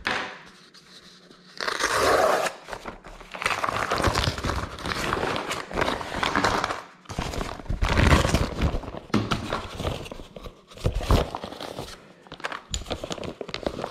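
A heavy kraft-paper mailer envelope crinkling and rustling loudly in uneven surges as it is handled and worked open by hand, beginning after a short quieter moment.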